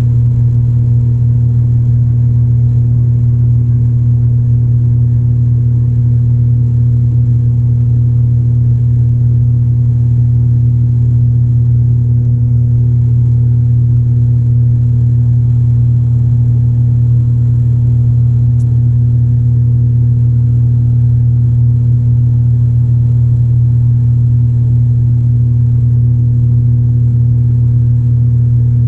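ATR 72-600's Pratt & Whitney PW127 turboprop and propeller droning steadily at climb power just after takeoff, heard inside the cabin beside the engine. A deep, even hum with a fainter higher hum above it, no change in pitch.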